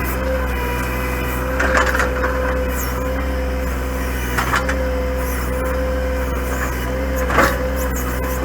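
Compact John Deere tractor's diesel engine running steadily while its backhoe digs, with three brief crunches as the bucket works against roots and soil.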